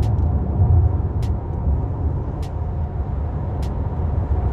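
Cabin noise of a 2021 Tata Safari cruising at around 100 km/h: a steady low rumble from its 2.0-litre Kryotec diesel, tyres and road. A light tick repeats about every second and a bit.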